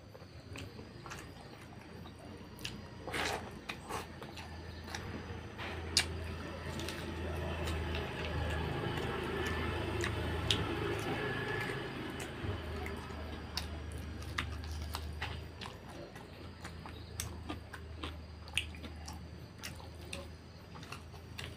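Close-miked wet chewing of rice and fatty pork curry, with sticky squishing from fingers mixing the rice and scattered small lip-smack clicks; it grows denser and louder through the middle.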